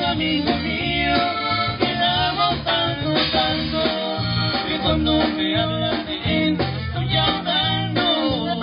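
Live norteño band playing a song: button accordion carrying the melody over guitar, bass and drums with a steady beat.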